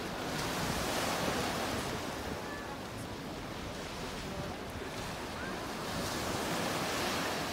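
Small waves washing onto a sandy beach, the surf swelling twice, about a second in and again near the end, with some wind.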